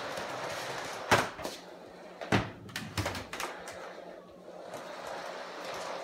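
Sharp plastic knocks and rattles from an upright vacuum cleaner being pushed and bumped across a wooden floor: the loudest about a second in, then several more around two to three seconds in, over a steady hiss.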